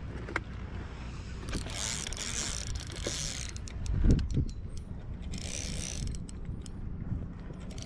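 Spinning reel being cranked against a hooked fish, its gears whirring and clicking, with two short bursts of higher buzzing about one and a half and five seconds in. A low thump about four seconds in is the loudest sound, over a steady rumble of wind on the microphone.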